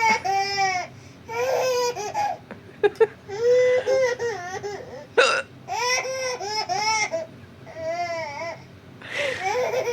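A woman hiccuping while a baby laughs at the hiccups in repeated bursts of high-pitched giggles, with a few short, sharp hiccups among them.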